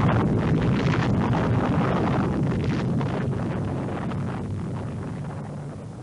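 Rumbling, crackling tail of an explosion sound effect, fading out steadily.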